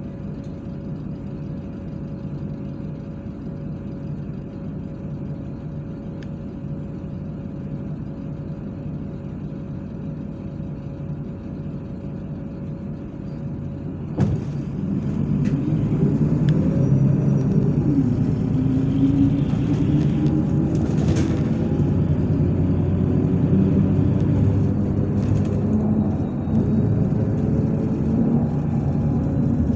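MAZ-103 city bus engine heard from inside the cabin, idling steadily with a constant whine. About halfway through comes a sharp clunk, and the engine grows louder as the bus pulls away, its pitch rising through the gears, with a brief dip in pitch near the end.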